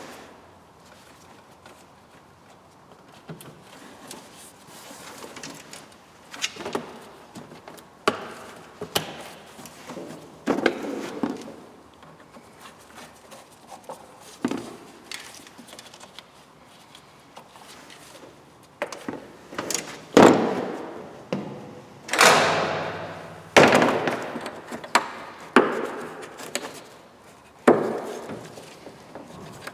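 Irregular knocks and clunks, a dozen or more, coming louder and closer together in the second half.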